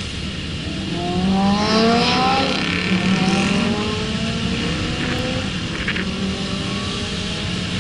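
A V8 idling steadily close by, with other cars' engines rising in pitch as they accelerate during the first three seconds and more faintly later on.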